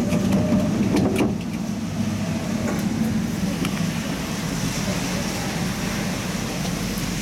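Tatra T3 tram running along the line between stops: a steady low hum of motors and wheels on rails, with a few sharp clicks in the first second or so.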